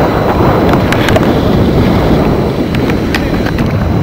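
Wind buffeting the camera microphone: a loud, steady rumble with a few faint ticks through the middle.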